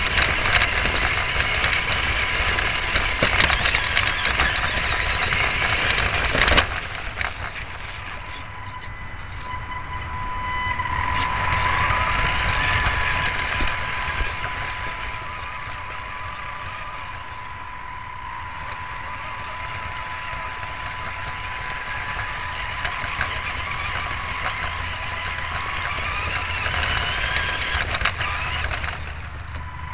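RC car's motor and drivetrain whining, rising and falling in pitch as the car speeds up and slows, over a low rumble with rattles and knocks from the chassis on rough leaf-covered ground. A sharp knock about six and a half seconds in, after which it runs quieter.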